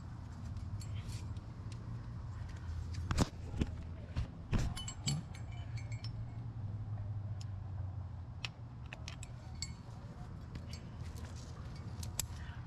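Metal climbing gear on a trad rack, carabiners and cams, clinking and jangling in scattered sharp clicks, with a few louder clinks a few seconds in.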